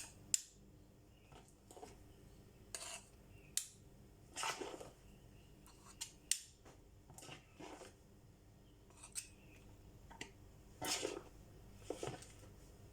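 Light clicks, taps and short scrapes, about a dozen spaced a second or so apart, as baked muffins and their cases are handled and set down in a container.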